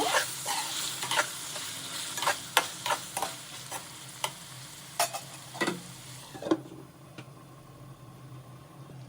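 Spoon scraping and clinking against a kadai as brinjal pieces frying in oil are stirred, over a steady sizzle; the stirring is done to keep them from sticking to the bottom. The strokes stop about two-thirds of the way through, leaving a fainter sizzle.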